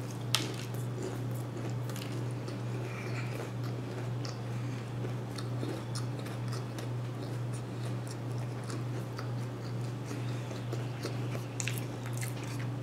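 A person chewing crispy fried chicken breading close to the microphone: wet chewing with many small crunchy clicks, and a sharper crunch just after the start. A steady low hum runs underneath.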